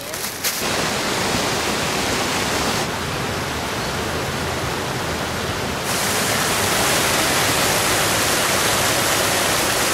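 Rushing water of a mountain stream: a steady, even hiss that changes level abruptly about three and six seconds in.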